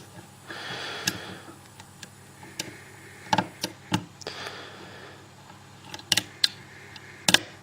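Small, sharp metallic clicks and taps at irregular intervals from a lock pick and tension wrench working the pins of a Lockwood deadlock cylinder under medium-to-heavy tension. There are two soft hissing stretches, one near the start and one a little past the middle.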